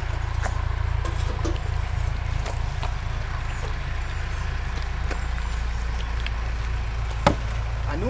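Huskies eating soaked kibble from bowls: scattered small chewing and bowl clicks over a steady low rumble, with one sharper knock near the end.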